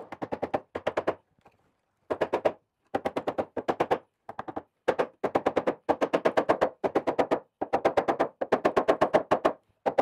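A hammer rapidly tapping thin wooden wedges into a crack in an elm slab, driving them home to support the split edge. The taps come in quick runs of several a second, each ringing slightly, with short pauses between runs.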